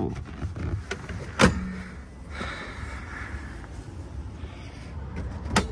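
Rear seat mechanism being handled: a sharp knock about a second and a half in and another near the end, with faint rubbing and handling noise between.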